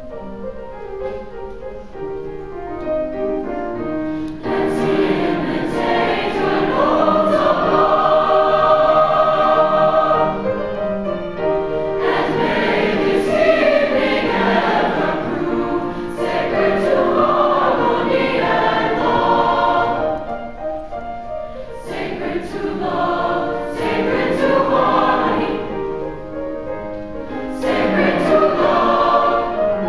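Mixed-voice youth choir singing together in parts, soft for the first few seconds and then swelling louder about four seconds in.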